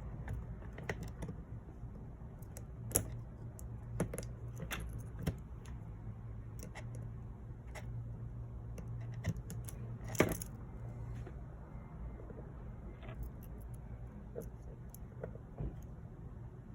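Scattered small clicks and taps, the loudest about three, four and ten seconds in, as the new screen's flex-cable connectors and small tools are handled on an opened iPhone 11 Pro Max. A steady low hum runs underneath.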